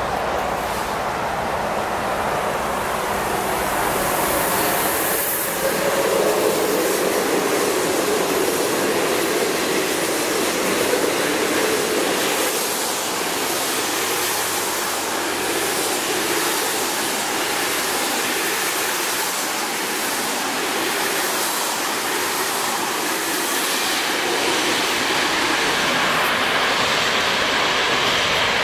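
Container freight train passing close: the steady rushing rumble of wagon wheels rolling on the rails, swelling as the front of the train goes by, with a faint regular clatter of wheels over the track.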